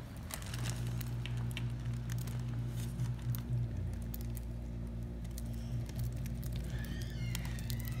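Budgerigars pecking and cracking seed from a palm: a scatter of small sharp clicks over a steady low hum.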